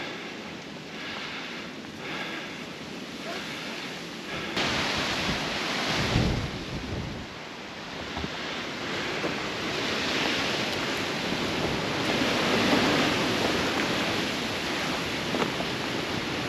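Wind buffeting the microphone: a rushing hiss that comes in suddenly about four seconds in, with deep gusty rumbles and swells after it.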